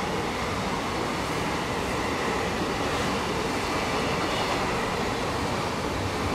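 Container flatcars of a long freight train rolling past at speed: steady, continuous wheel-on-rail noise.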